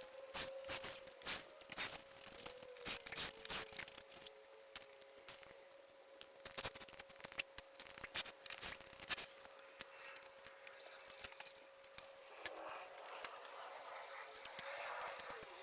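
Irregular clicks and knocks of wooden concrete formwork being taken apart, over a faint steady hum.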